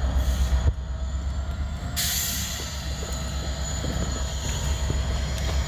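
Freight train moving through a grade crossing, its diesel locomotive giving a steady heavy rumble. The sound changes abruptly twice in the first two seconds, after which a high hiss and a thin, high wheel squeal come in.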